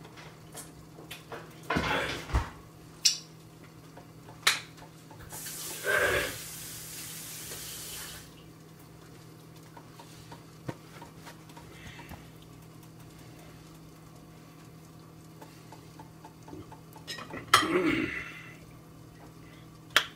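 Cooking pots and metal utensils clanking and clinking, a few separate knocks early on and a burst of clatter near the end, with a hiss lasting about three seconds midway, over a steady low hum.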